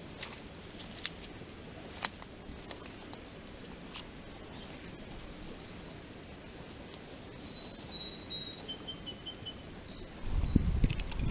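Footsteps crackling through dry leaves and twigs on the forest floor, with scattered clicks that thin out as the walker moves away. A bird gives a thin high whistle about two-thirds in, then a short run of quick chirp notes. Near the end a sudden loud low rumble begins.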